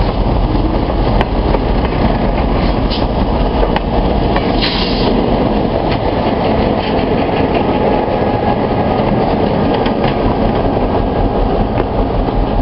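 A passenger train rolling along the track: a steady rumble of wheels on rail, with scattered light clicks and a short hiss about five seconds in.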